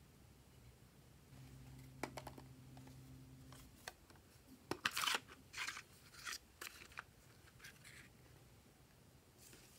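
Hard plastic clicks and short scrapes of a seashell-shaped toy makeup compact being handled and snapped open, loudest in a quick cluster about five seconds in, followed by a few lighter taps.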